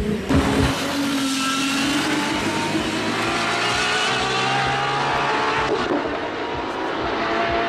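Aston Martin Valkyrie AMR Pro's naturally aspirated 6.5-litre Cosworth V12 launching and accelerating hard down a drag strip, its note climbing steadily, with a brief break about six seconds in.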